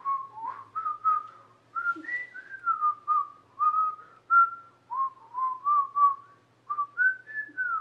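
A person whistling a meandering tune, a string of short notes stepping up and down.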